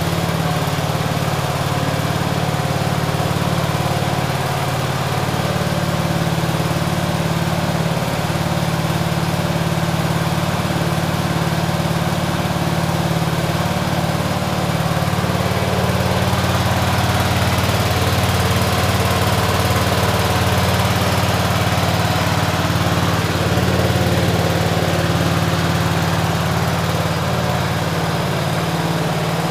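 Fordson tractor engine running steadily in first gear, turning the roller-chain drives and screw drums with no load on them.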